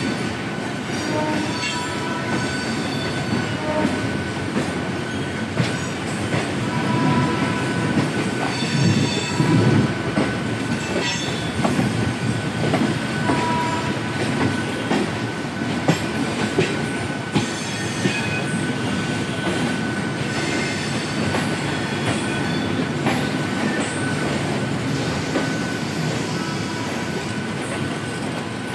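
Electric suburban trains running, heard from aboard one of them: wheels rumbling and clattering over rail joints and points, with brief wheel squeals on the curves and a steady high tone throughout.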